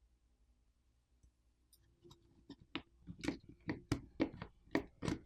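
Small plastic phone parts being handled and turned over on a work surface: a run of about a dozen light, irregular clicks and taps starting about two seconds in.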